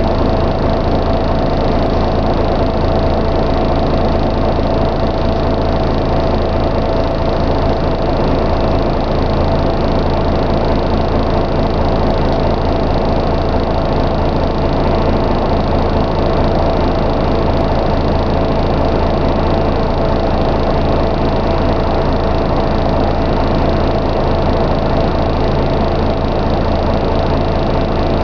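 Scania N113 double-decker bus's engine and drivetrain running steadily as heard inside the passenger saloon: an even, unchanging drone with a thin steady whine above it.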